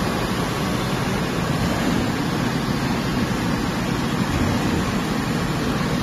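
Steady, even machine noise from a running PET bottle blow-molding machine.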